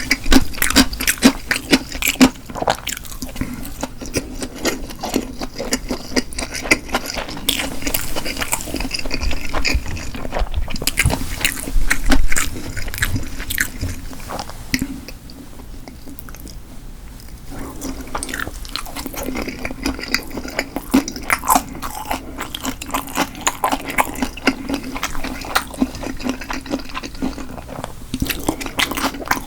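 Close-miked eating sounds: a person chewing food with wet mouth clicks and smacks in a dense, irregular stream. The sounds ease off for a few seconds about halfway through, then resume.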